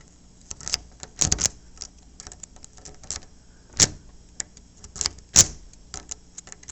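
Metal lock-picking rake being raked in and out of a pin tumbler door lock under a tension tool: irregular scraping clicks of the pins, with a few louder knocks about a second in, near four seconds and again past five seconds.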